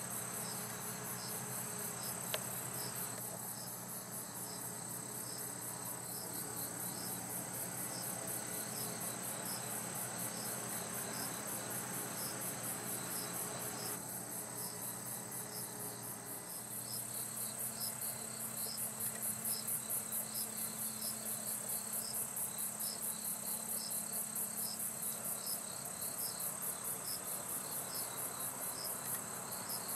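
Chorus of singing insects: a fast, unbroken high-pitched trill, with short chirps repeating steadily a little more than once a second.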